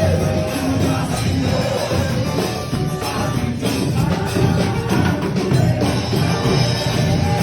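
A band playing an upbeat Pentecostal worship chorus (a 'corinho de fogo'), loud and continuous, with a jingling percussion part.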